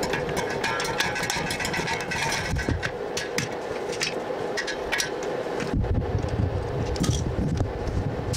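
Light metallic clicks and taps as a stick welder's electrode holder and scrap steel pieces are handled, over a steady hum. A low rumble comes in about six seconds in.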